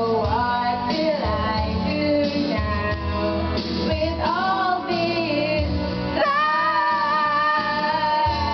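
A woman singing karaoke over a recorded backing track, holding long notes that waver in pitch.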